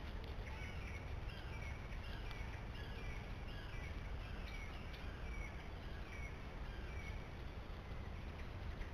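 A bird calling, a short slurred note repeated about twice a second, over a steady low rumble.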